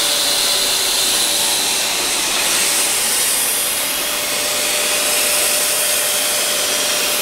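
Electric air compressor running steadily, with a loud hiss and a faint steady hum, as it blows air into the air beams of an inflatable roof-top tent.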